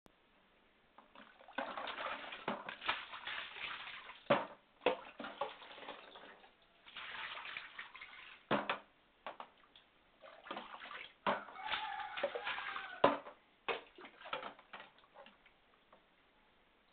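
Catfish thrashing in shallow water on a tiled bathroom floor: splashing in irregular bursts of a second or a few, broken by several sharp slaps.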